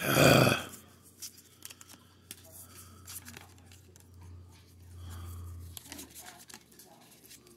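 Baseball cards being slid and flipped off a stack in the hand, with scattered soft clicks and rustles of card stock. A brief loud burst of noise comes right at the start.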